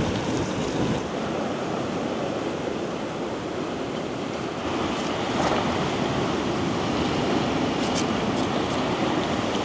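Sea waves washing on the shore with wind, a steady rushing noise, with a few faint clicks about five and eight seconds in.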